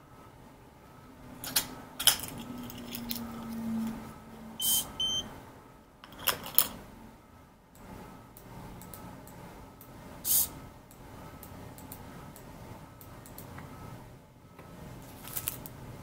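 Clicks and taps from hands handling a small Arduino RFID door-lock prototype with a hobby servo. A low whine runs for about a second and a half a few seconds in, and two short high beeps follow close together about five seconds in.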